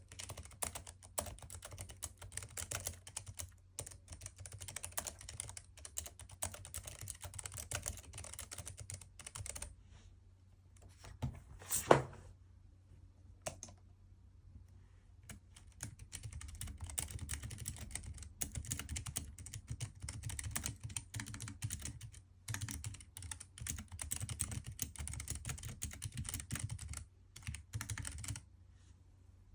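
Typing on a Keychron K3 V2 low-profile keyboard with optical brown (tactile) switches, in quick runs of key clicks with a pause in the middle. A single loud knock stands out about twelve seconds in.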